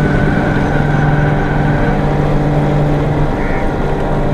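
Engine of the open vehicle carrying the camera, running steadily at an even cruising pitch as it travels along the road.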